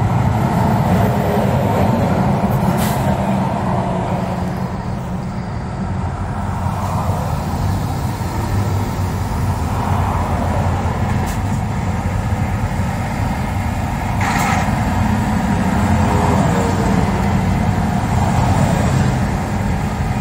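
Road noise inside a moving car's cabin: a steady low rumble of engine and tyres at highway speed, with a brief swell of noise about a third of the way through and again past the middle.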